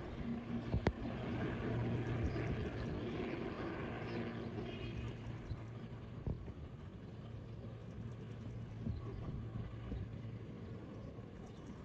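Steady engine rumble with a low hum, slowly fading, and one sharp click about a second in.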